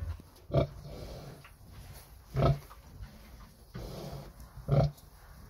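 Kolbroek sow grunting while her piglets suckle: three short, low grunts about two seconds apart, the steady grunting a nursing sow makes.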